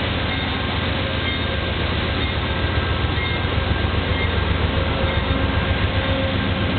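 Amtrak GE Genesis diesel-electric locomotive running close by: a steady low throb with a few faint steady whines on top, growing a little louder and more pulsing about a third of the way in.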